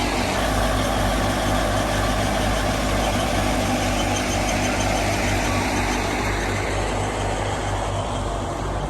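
Old Fiat 480 tractor's diesel engine running steadily with an even low throb.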